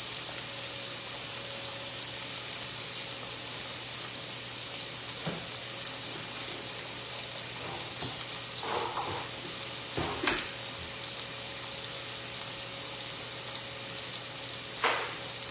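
Chicken pieces frying in oil in a frying pan, a steady sizzling hiss with a few short clicks.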